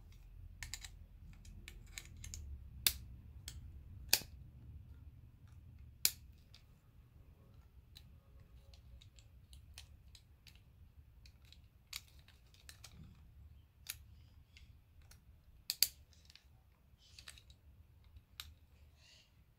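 Small metal parts of a mortise lever lock being handled: irregular light clicks and taps from the key and the lock's levers, with a few sharper clicks scattered through.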